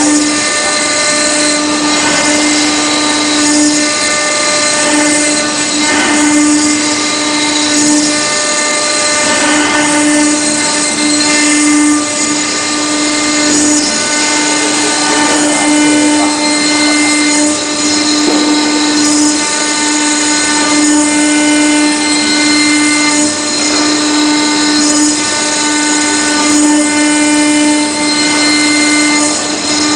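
CNC router spindle running at a steady high speed while its small engraving bit cuts marble: a continuous whine with a gritty grinding hiss from the cut.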